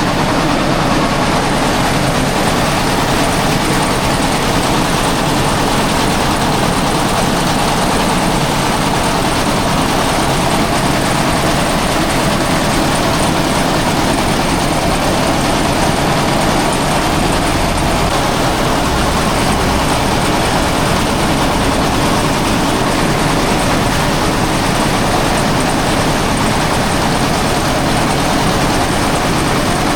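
Engine-driven threshing machine running steadily: a loud, continuous mechanical noise with no breaks.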